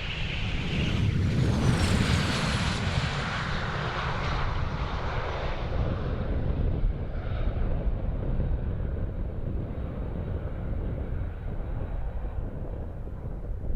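Northrop F-5's twin General Electric J85 turbojets passing close by: a high whine turns into a loud roar that peaks a couple of seconds in, its pitch dropping as the jet goes past, then a steady rumble that slowly fades.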